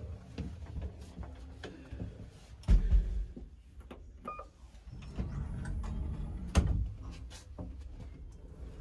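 Small passenger elevator in use: clicks and a heavy thump near three seconds in, a short beep about four seconds in as the ground-floor button lights, then the low steady hum of the car moving, with a sharp click partway through.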